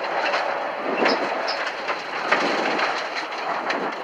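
Mitsubishi Lancer Evolution IX rally car, with its turbocharged four-cylinder engine, driven hard on a gravel stage and heard from inside the cabin: a steady road and engine noise, with loose stones rattling and pinging off the underbody in many sharp clicks.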